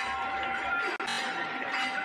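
A dense crowd of devotees fills a large temple hall with a din of many voices. Steady held musical notes sound over it.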